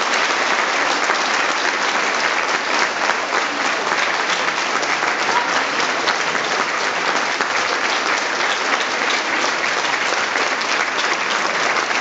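Audience clapping steadily, a dense patter of many hands.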